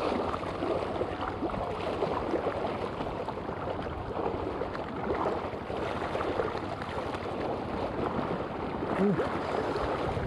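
Small waves washing and splashing against rocks in shallow sea water, a steady churning rush.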